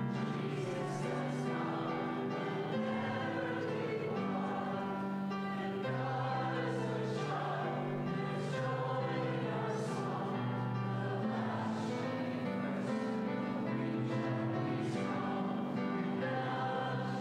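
A choir singing a Christmas hymn with instrumental accompaniment, in held notes that move from line to line.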